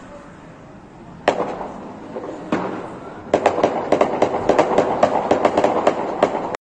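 Sharp bangs from an armed attack on police housing. There are two single loud cracks, each dying away, then a rapid run of cracks at about five a second lasting about three seconds.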